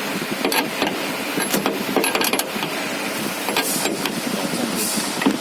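Hands working on machine parts: scattered sharp clicks and a couple of short scraping sounds over a steady background noise, as parts are fastened back in place.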